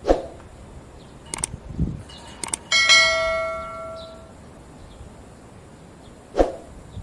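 Subscribe-button sound effect: two sharp mouse clicks, then a notification bell ding that rings out for about a second and a half. A short thump comes at the start and another near the end.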